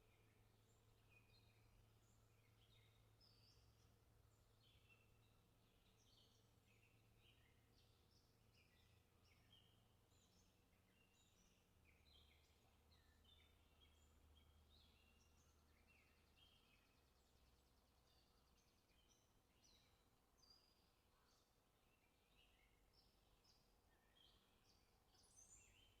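Faint chorus of several songbirds, many short chirps and twittering notes overlapping throughout, over a steady low hum.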